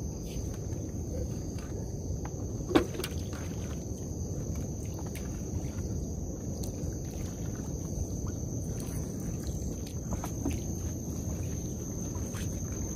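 Trammel net hauled by hand over the side of a wooden boat: mesh rustling with faint scattered taps and one sharp knock about three seconds in, over a low steady rumble and a steady high-pitched chorus of night insects.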